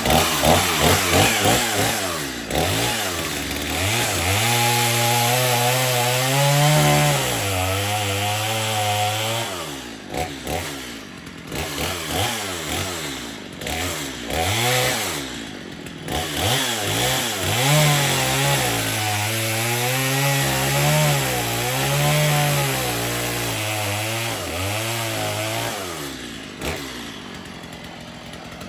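Stihl MS 250 two-stroke chainsaw with a new, sharp chain cutting through a small log. The engine revs high under load in two long stretches, its pitch sagging and wavering as the chain bites. Between them it drops back, and near the end it falls to idle.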